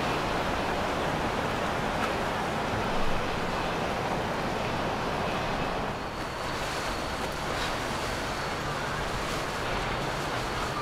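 Steady rush of water from a passing motor yacht's bow wake and wash, with wind on the microphone. A faint high steady tone comes in about halfway through.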